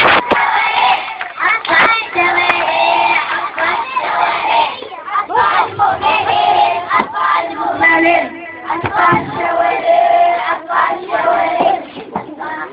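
A group of young girls singing together through a microphone, with hand claps throughout; the singing fades near the end.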